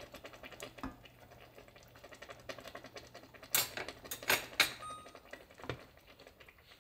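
Metal kitchen utensils clinking against a ceramic bowl and plate as a spatula and tongs are set down, with three sharp clinks a little past halfway. A low steady hum stops about five seconds in, together with a short electronic beep, and a dull knock follows as the bowl is handled.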